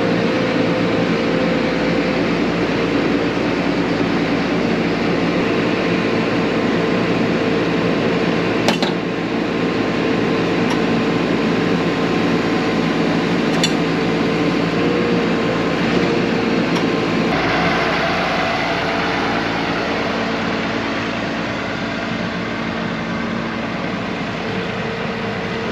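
MacDon self-propelled swather's diesel engine running steadily, heard from inside the cab along with a steady fan hum. A couple of brief clicks come about nine and fourteen seconds in.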